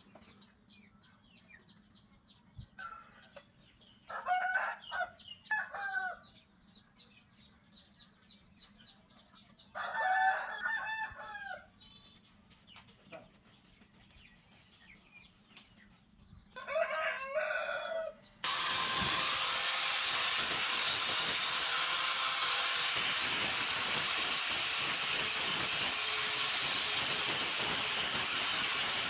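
A rooster crowing three times against quiet background. About two-thirds of the way in, an angle grinder with a wire wheel starts suddenly and runs loud and steady with a harsh hiss, brushing rust off a steel razor blade and throwing sparks.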